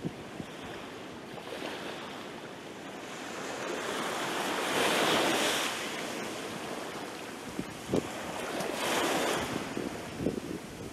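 Small sea waves breaking at the shore and washing up over sand and pebbles, the wash swelling loudest about halfway through and again near the end.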